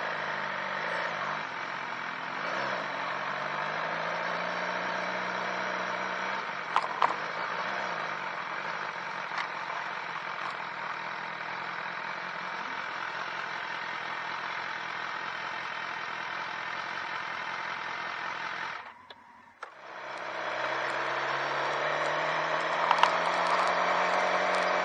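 Motorcycle engine running at low town speed, its pitch drifting gently up and down, with a few short clicks about seven seconds in. The sound drops out for under a second about nineteen seconds in, then comes back a little louder.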